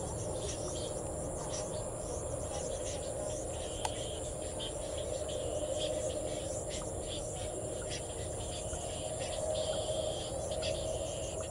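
Steady, continuous chirring of crickets and other insects, with one faint click about four seconds in.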